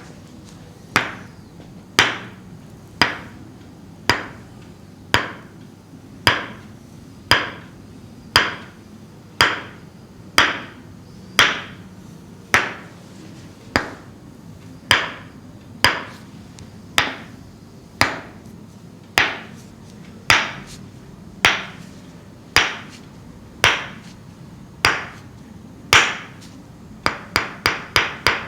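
Tok-sen massage: a wooden mallet tapping a wooden stake held against the body, about one tap a second, each ringing briefly. Near the end it breaks into a quick run of lighter taps.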